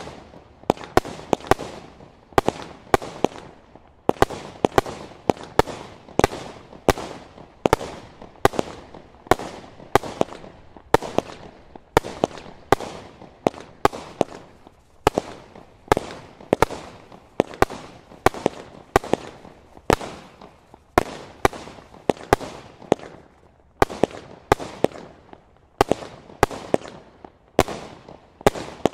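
Standard Fireworks 'Witchcraft' barrage, a multi-shot firework cake, firing shot after shot: sharp bangs at about two a second, each with a short trailing rumble, keeping up a steady pace throughout.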